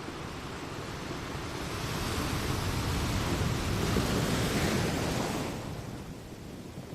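Ocean ambience: a steady rush of noise that swells into a deep rumble about two seconds in, then dies back well before the end.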